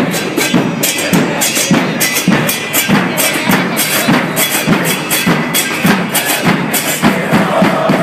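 Football supporters' drum band: several large bass drums beating a fast, steady rhythm, with sharp strokes about two to three times a second.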